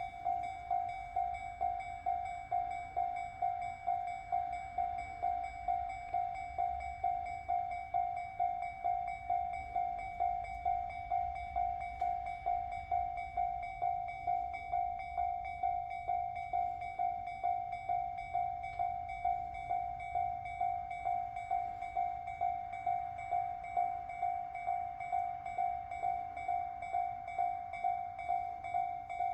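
Japanese level-crossing warning bell ringing steadily at about two strikes a second, a two-tone electronic clang signalling an approaching train. A low rumble runs underneath, strongest in the first half.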